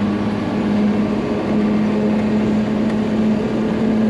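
Diesel engine of an M35-series deuce-and-a-half military truck running steadily while driving on the road, a loud, even drone.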